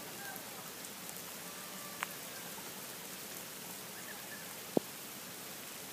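Steady rain falling, an even hiss, with two single sharp taps, one about two seconds in and a louder one near five seconds.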